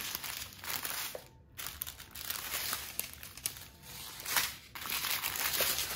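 Small plastic packets of diamond-painting resin drills crinkling and rustling as they are handled and sorted, with a short lull about one and a half seconds in.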